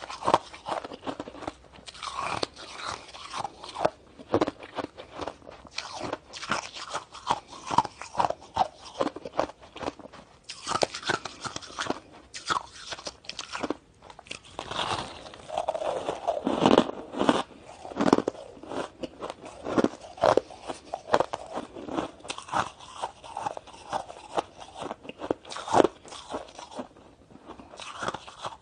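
Lumps of packed shaved ice being bitten off and chewed: a dense, irregular run of crunches.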